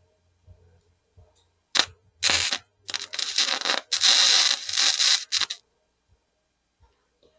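Flux-core wire-feed welder arc crackling: a few short starts, then a steady weld lasting about a second and a half, ending abruptly.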